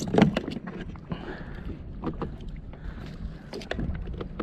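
Water sloshing against the side of a plastic pedal kayak while a caught rockfish is handled over the side, with a loud thump just after the start and scattered knocks and clicks through the rest.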